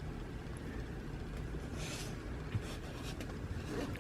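Faint handling noise over a steady low background hum: a brief soft rustle about two seconds in, then a small knock.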